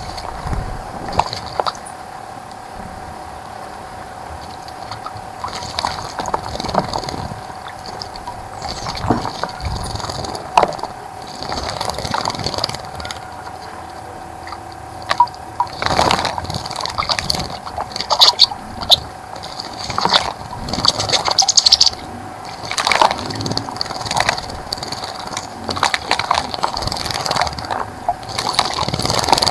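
Wild birds bathing in a bird bath: irregular splashes and wing flutters, busier in the second half, over a steady hum.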